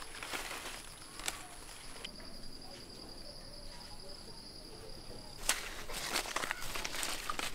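Insects trilling steadily: one high, thin, continuous tone with a fast-pulsing trill beneath it, over the rustle of bean plants being picked by hand, with a sharp snap about a second in. From about five and a half seconds, footsteps in sandals swish through grass.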